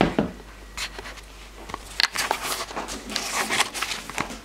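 Handling noise as a plastic bowl of cooked oatmeal is moved and set down on a kitchen counter: a few sharp knocks in the first two seconds, then a couple of seconds of scraping and rustling.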